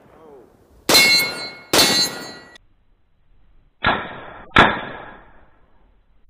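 Rifle bullets striking a steel silhouette target plate: four sharp metallic clangs in two pairs, each ringing out and fading. The first pair comes about a second apart near the start; the second pair, near the middle, sounds thinner.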